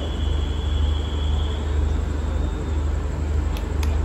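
Diesel passenger train standing at the platform with its engine running: a steady low rumble with an even pulse. A thin high squeal fades away over the first two seconds, and two sharp clicks come near the end.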